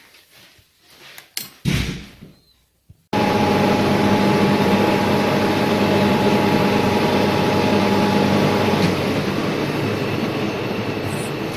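A few faint knocks, then about three seconds in a milling machine suddenly starts running loudly and steadily with a whining hum. Near the end the hum tones drop out while the running noise continues.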